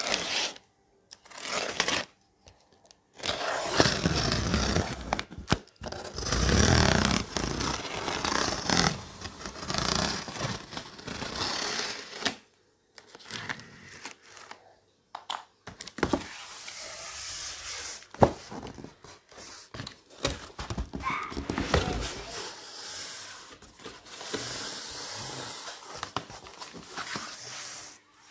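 Plastic wrap and packing tape being torn off a cardboard box in irregular bursts, with cardboard scraping as the box is opened and plastic packaging rustling.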